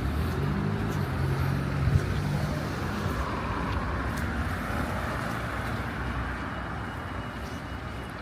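A car passing on a wet street: its engine hum and the hiss of its tyres fade as it moves away. A sharp click about two seconds in.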